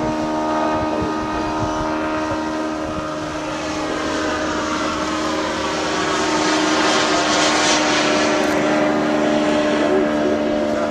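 Radio-controlled model airplane's motor and propeller droning steadily in flight, growing louder as it passes closest about two-thirds of the way through.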